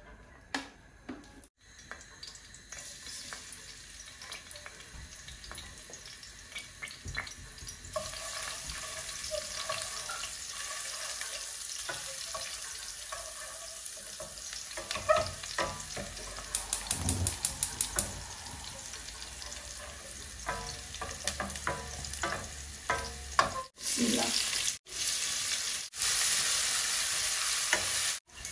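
Onion and spice masala sizzling in a metal pot as it is stirred with a wooden spoon, the spoon scraping and knocking on the pan. The sizzle grows louder about a third of the way in. A little past halfway comes a quick run of about eight taps, and near the end the sound drops out abruptly several times.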